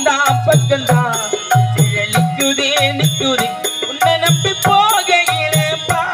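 Live Tamil nadagam stage music: a man singing an emotional song about a mother, accompanied by harmonium and a steady drum beat.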